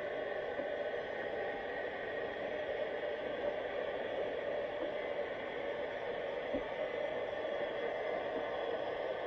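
Steady underwater hiss picked up through a GoPro's waterproof housing, with a few faint clicks.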